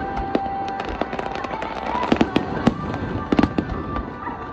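Aerial firework shells bursting: a quick string of sharp bangs and crackles, with a cluster of louder bangs a little past halfway.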